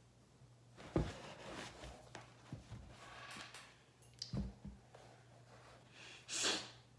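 Handling noise from a football cleat being turned over and set down on paper towels: a few soft thumps and rustles, then a short loud rush of noise near the end.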